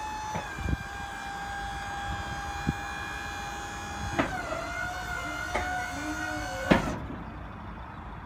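Electric hydraulic pump of a tipper trailer whining steadily as the telescopic cylinder raises the bed. The whine drops in pitch twice with a clunk, and cuts off with a knock about seven seconds in.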